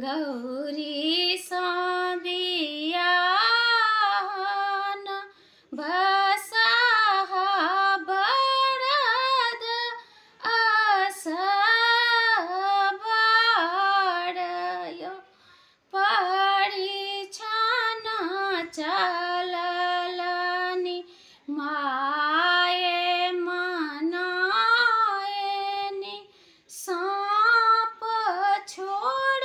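A woman singing a Maithili Maheshwani, a devotional song to Shiva, unaccompanied. She sings in long melodic phrases of about five seconds with short breaths between them.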